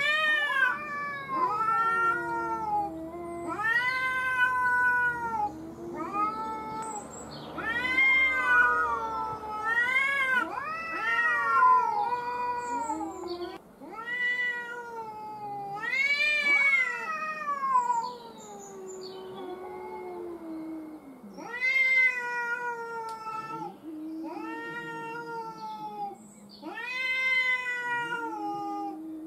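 Two tomcats yowling at each other in a standoff, a run of long wailing calls that rise and fall in pitch, one after another and at times overlapping. These are the threat yowls of rival males squaring off before a fight.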